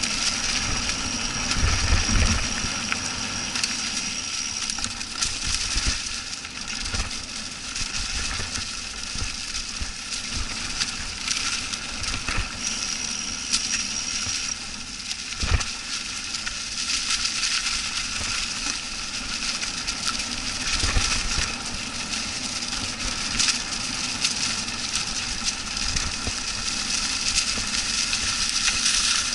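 Mountain bike riding over dry, leaf-covered dirt singletrack: a steady rush of tyres crunching through the leaves and the bike rattling, with occasional low thumps over bumps.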